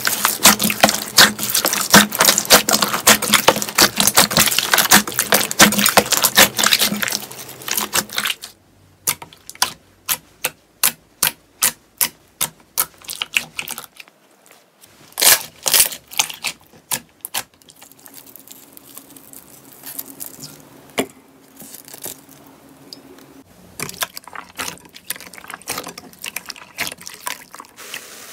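Hands squishing and kneading slime: a dense run of wet crackling and popping for the first eight seconds or so, then separate pops about two a second, and later a few louder pops followed by softer, scattered squishes and clicks.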